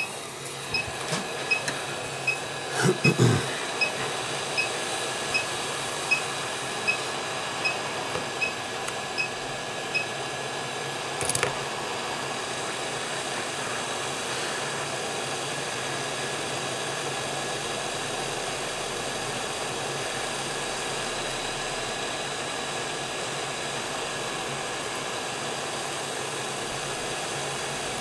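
Hot air rework gun blowing steadily onto an iPhone 5s logic board to heat it for desoldering. The air noise rises in the first second and then holds. Short regular beeps come about every three quarters of a second for the first ten seconds, with a knock about three seconds in.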